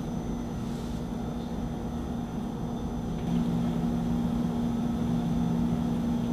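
A steady low mechanical hum with a rumble underneath, stepping up in level about three seconds in.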